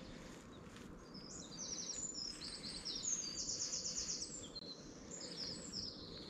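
A small songbird singing quick, high-pitched trilled phrases, the notes repeated rapidly in runs, over a steady low background rumble.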